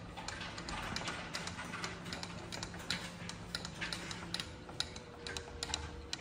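Small balls clicking and clacking through the tracks and lift of an interactive ball-run wall: light, irregular ticks several times a second.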